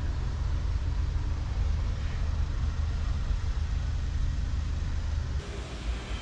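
Steady low outdoor rumble with no distinct events; the sound changes abruptly near the end.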